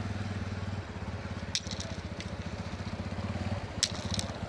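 TVS Apache RTR 180's single-cylinder four-stroke engine running at low revs with a rapid, even putter as the motorcycle is ridden slowly through loose sand. A few sharp clicks come about one and a half seconds in and again near the end.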